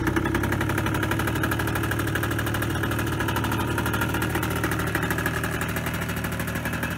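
Freshly rebuilt Suzuki LT80 quad's small single-cylinder two-stroke engine idling steadily, just started on its electric starter.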